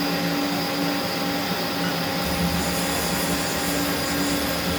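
1996 Haas CNC lathe powered up and running, a steady mechanical hum with several held tones; a lower rumble joins about two seconds in.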